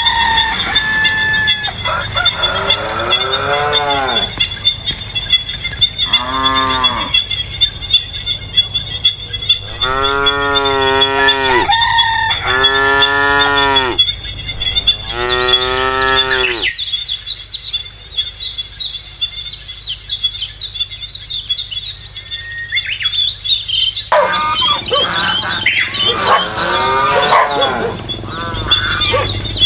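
Cattle mooing: about five long, drawn-out moos in the first half. Birds chirping rapidly take over in the second half, over a steady high-pitched insect drone.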